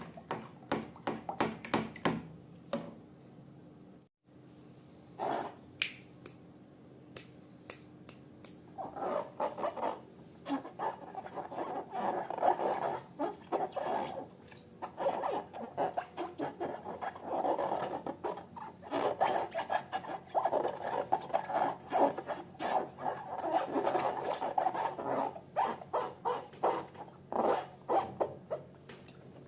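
Slime being handled and squeezed: quick sticky clicks and squelches, with a longer stretch of continuous rubbing and squishing starting about nine seconds in.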